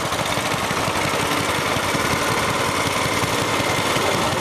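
Small farm-machinery engine running steadily with a rapid, even firing beat.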